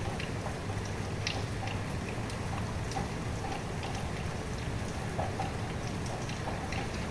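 Steady rain falling, with individual drops striking sharply and irregularly over a constant low hiss and rumble.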